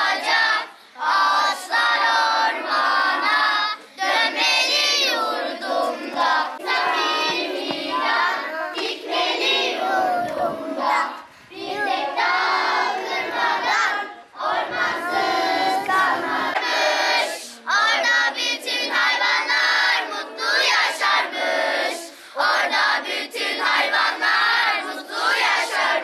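A group of children singing together in unison, with short breaks between lines.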